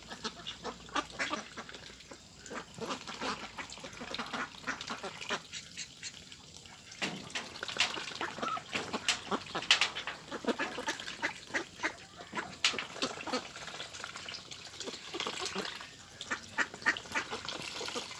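A large flock of domestic ducks quacking, many short calls overlapping. After a brief lull the calls grow louder and denser about seven seconds in.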